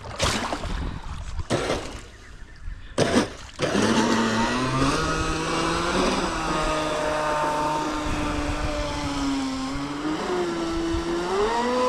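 Large-scale RC boat's electric motor, run on a 6S battery, whining as the boat is driven across the water. A few short bursts come in the first few seconds, then a continuous run from about four seconds in, its pitch rising and falling with the throttle.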